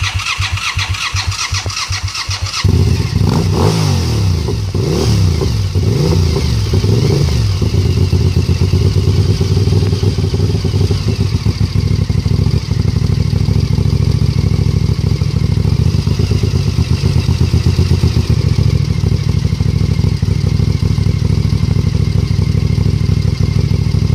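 Suzuki TL1000R's 996 cc V-twin being cranked on the starter for a couple of seconds, catching, revving briefly a few times, then settling into a steady idle until it cuts off right at the end. The owner calls the exhaust sound a bad exhaust leak.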